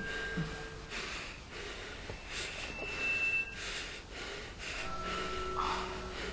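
A man breathing hard in short, quick gasps, one or two breaths a second: the panicked breathing of someone in pain or terror as a knife is taken to his forearm.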